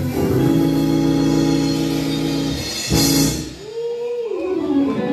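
Instrumental church music: held keyboard chords that break off about three seconds in, followed by a single tone that glides up and then back down.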